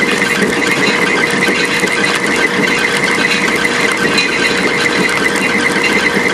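Foremost QG-1814 rubber grinder and its 2-hp vacuum discharge blower running steadily: a continuous loud mechanical noise with a constant mid-pitched hum and a fine ticking, as ground rubber is blown out through the discharge hose into a box.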